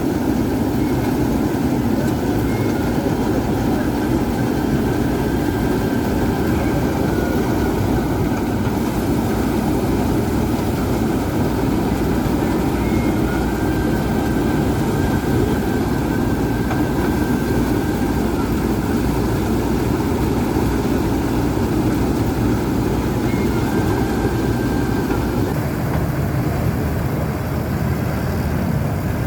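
Engine of a rice harvesting machine running steadily at a constant speed.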